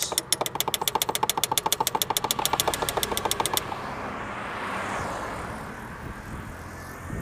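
2004 Toyota Camry's starter clicking rapidly, about nine clicks a second, as the key is turned without the engine cranking: the sign of a starter not turning over, which the owner puts down to a failed starter. The clicking stops after about three and a half seconds and a steady even noise follows.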